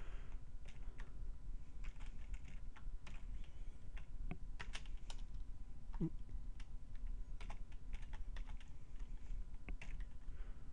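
Computer keyboard keys clicking in slow, irregular typing, a few keystrokes at a time, over a steady low hum.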